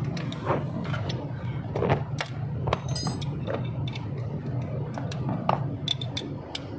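Metal wrench and socket clicking and clinking against the compressor's tight mounting bolts as they are worked loose, with irregular knocks and one ringing clink about 3 seconds in, over a steady low hum.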